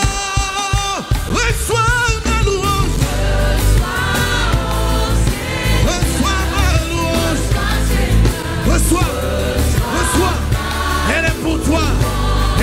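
Live gospel worship music: a choir and lead singer sing in French with a band. A held chord opens, and a full band with a heavy bass line comes in about a second in under the singing.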